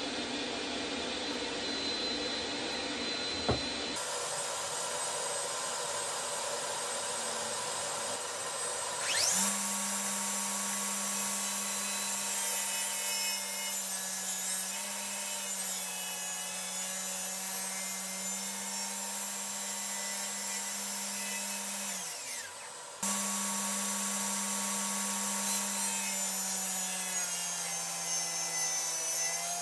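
Jobsite table saw running and cutting 2x4 SPF lumber, with a steady motor hum and whine whose pitch dips slightly under load. The sound changes abruptly at a few edits.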